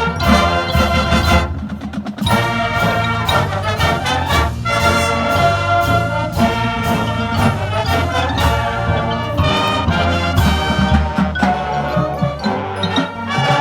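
A school wind band playing loudly, brass to the fore, with sharp percussion hits among the sustained chords.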